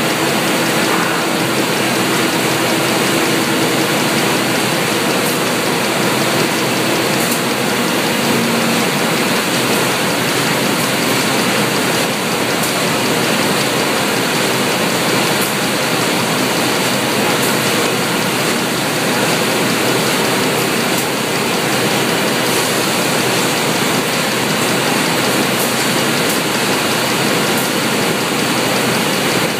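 Steady, loud din of factory machinery: an automated robotic cell and roller conveyors moving stacks of flat cardboard boxes, with a few faint clicks now and then.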